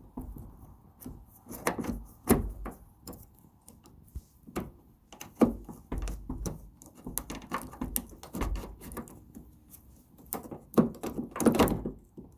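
Irregular plastic clicks, knocks and rattles as a car door's interior trim is pried off by hand, its retaining clips popping loose, with louder clusters near the start, in the middle and near the end.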